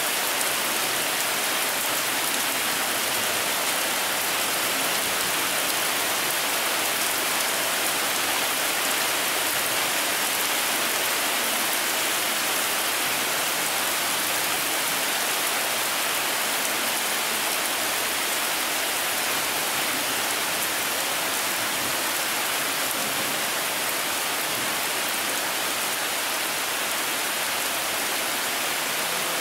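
Summer rain shower falling steadily on dry ground and bare shrubs, an even, unbroken hiss.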